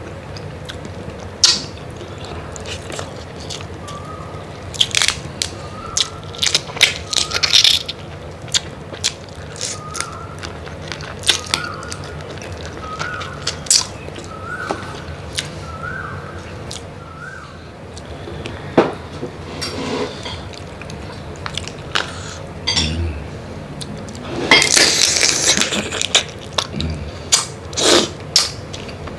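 Close-miked eating of tiger prawn and mud crab: scattered sharp crunches and crackles of shell being bitten and broken, with a longer, louder run of crunching near the end.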